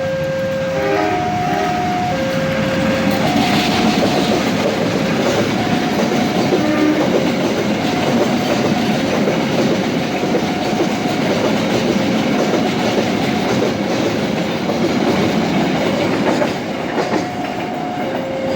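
A train passing over a level crossing, its wheels clattering on the rails. Through it, the crossing's electronic warning alarm keeps sounding, alternating between two tones about once a second.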